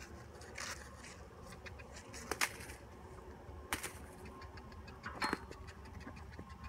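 A horse trotting on turf under a rider: a soft low rumble with a few sharp clicks and rattles spaced about a second or more apart.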